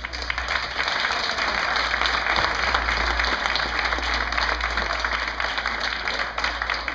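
Audience applauding: a dense, steady patter of clapping that eases off slightly near the end.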